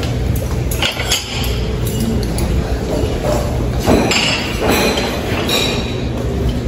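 Scattered clinks and knocks of china plates and metal serving tongs at a buffet counter, over a steady low room hum.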